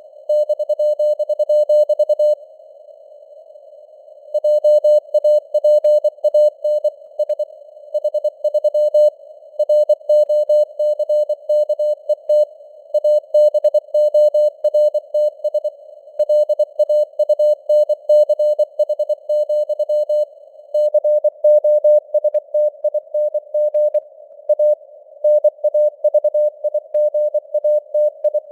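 Morse code (CW) sent at 24 words per minute as a keyed, mid-pitched beep in a narrow hiss of simulated radio noise. About two seconds in there is a pause of roughly two seconds, then the rapid dits and dahs run on.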